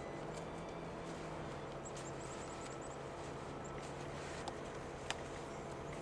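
Gloved hand packing snow into the open top of a glass evacuated solar tube: soft crunching and scraping of snow, with two sharper clicks on the glass near the end.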